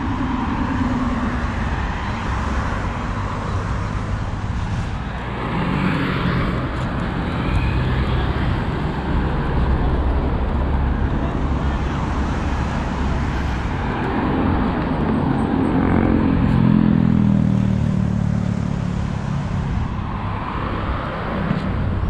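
Street traffic going by on a city road: a steady wash of car and engine noise, with two louder vehicle passes, one about a quarter of the way in and a longer one past the middle.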